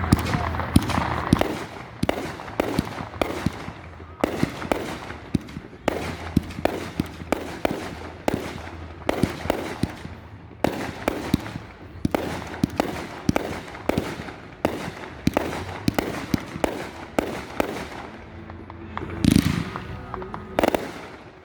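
Fireworks display: a rapid, continuous run of bangs and crackling reports, several a second, with a louder burst near the end.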